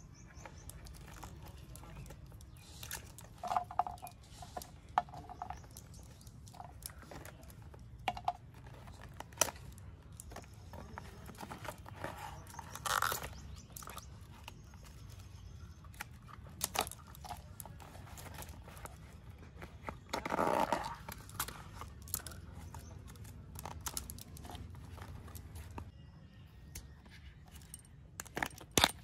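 Banana flower being cleaned by hand: irregular crisp snaps, cracks and tearing as the bracts are peeled back and the floret clusters are pulled off, over a faint steady low hum.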